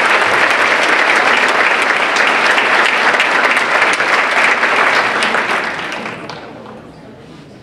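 Audience applauding, loud and steady at first, then dying away over the last two seconds or so.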